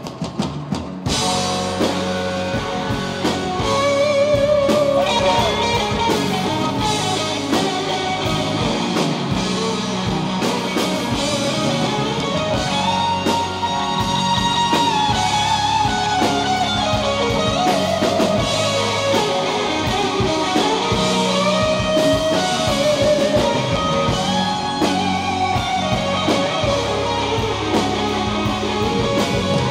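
Live rock band playing an instrumental passage on electric guitars, bass guitar and drum kit, coming in fully about a second in after a few drum hits, with a wavering lead guitar line over the band.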